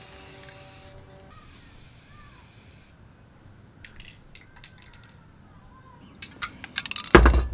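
Aerosol spray paint cans hissing in two bursts, about one second and then about a second and a half long, over the first three seconds. Later come scattered clicks and rattles, and near the end a loud low rumble of the microphone being handled.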